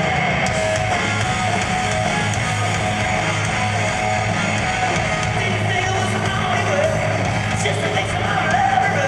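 Hard rock band playing live through a PA: distorted electric guitar over a pulsing bass line, with a male lead vocal coming in near the end.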